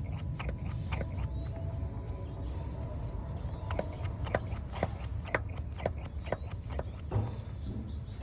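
Engine oil dripping out behind the cam hub cap onto the engine below: a string of light ticks, about two a second through the middle, over a low steady hum.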